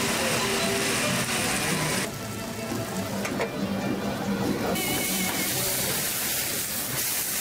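Prickly pear cactus paddles (nopales) sizzling on a flat-top griddle, with music playing. The sizzle drops away for a couple of seconds from about two seconds in, then returns.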